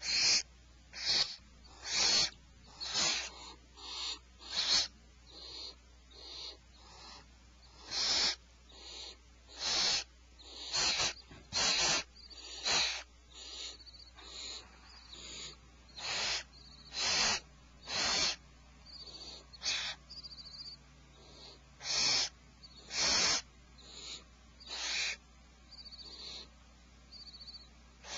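Barn owls giving harsh hissing screeches over and over, each call short and breathy, roughly one a second with a few short breaks. At feeding time these are food-begging hisses.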